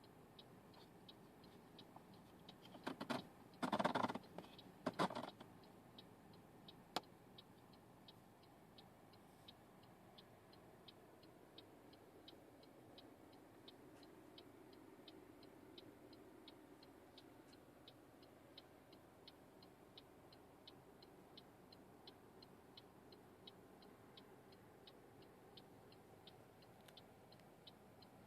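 Faint, steady ticking at about two ticks a second, with a cluster of louder knocks and rustles about three to five seconds in and a single click a couple of seconds later.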